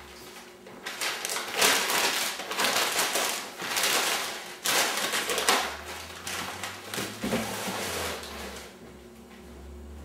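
Sheets of packing paper rustling and crinkling as they are folded around pot lids, loudest in the first half and quieter after about six seconds.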